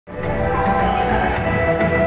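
Music with long held notes, starting at once.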